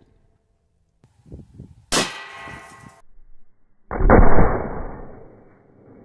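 .308 rifle shot with a SLAP round striking a row of blue enamel frying pans: a sharp crack and metallic clang that rings on briefly, then cuts off. About four seconds in comes a slowed-down replay of the impact, a deep, dull boom that fades over a second or so.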